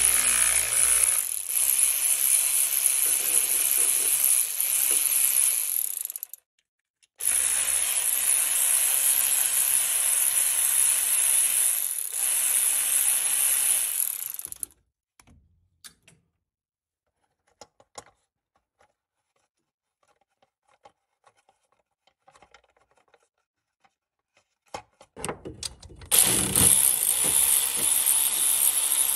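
Cordless electric ratchet running in three long bursts, a steady high-pitched whir as it spins bolts. The first two runs last about six to seven seconds each, then about ten seconds of faint clicks and handling follow before it runs again near the end.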